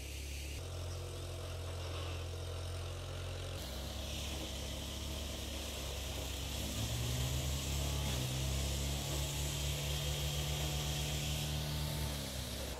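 A motor engine running with a low hum, its pitch rising about halfway through and dropping near the end, under a steady high hiss.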